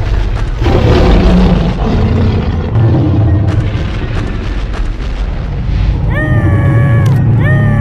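Cartoon battle sound effects: a loud, continuous low rumble with booms. Near the end come two short, high-pitched cries.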